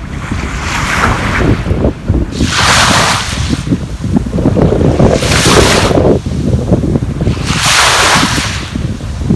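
Sea waves washing onto the shore, the surf swelling into a hiss about every two and a half seconds, with wind buffeting the microphone as a constant low rumble underneath.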